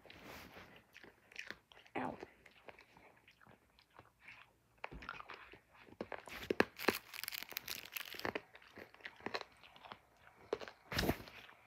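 Close-up chewing and crunching of candy in a person's mouth, as irregular crackly crunches that come thickest about halfway through. A louder knock comes near the end.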